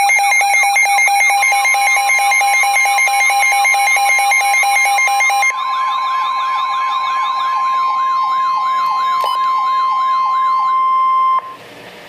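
Weather radio warning alarm: a steady single alarm tone layered with wailing electronic siren sweeps and pulsed beeping, the alert that announces a severe thunderstorm warning broadcast. About eleven seconds in, the alarms cut off suddenly, leaving faint radio hiss.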